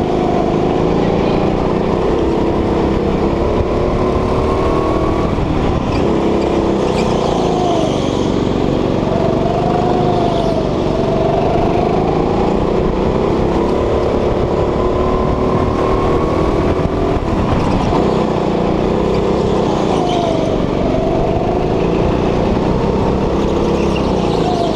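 Go-kart engine running hard, heard from the driver's seat, its pitch rising on the straights and dropping as the throttle eases for each corner, over and over.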